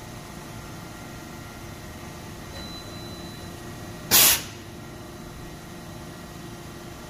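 Steady running hum of a Willemin Macodel W 408 S five-axis machining center, with one short, loud hiss of compressed air about four seconds in.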